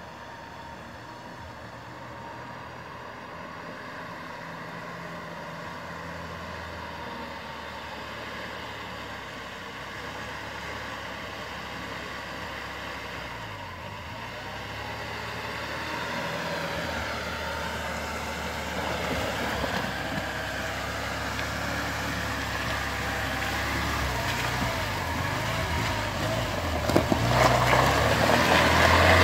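UAZ Patriot SUV's engine running as it drives through a flooded muddy track, growing steadily louder as it approaches, its pitch rising and falling with the throttle. Near the end the tyres churn and splash through water and mud close by.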